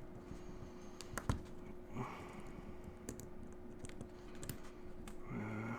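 Small scattered metallic clicks and taps of DOM Diamant lock parts and tools being handled during disassembly. There is a faint steady hum underneath and a short hum-like vocal sound near the end.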